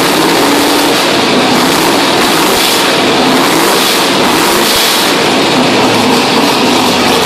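Small-block V8 of a 1967 Camaro running loud through open headers. The throttle is blipped, so the revs rise and fall a few times in the middle.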